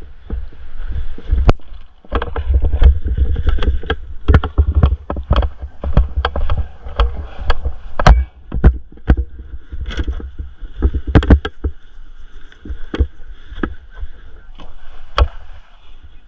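Airsoft guns firing and BBs striking: sharp cracks at irregular intervals, sometimes several in quick succession, over a low rumble on the microphone.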